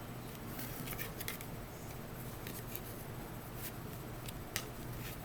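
Scattered light clicks and rustles of tarot cards being handled, about seven crisp ticks spread unevenly over a low steady room hum.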